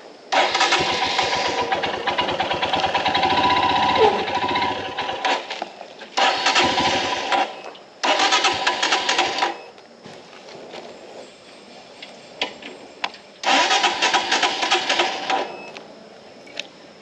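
Royal Enfield Himalayan BS VI's 411 cc single-cylinder engine on a morning cold start, making the weird noise the owner hears only in the mornings: four loud bursts of engine noise, the first about five seconds long and the others one to two seconds, each stopping abruptly.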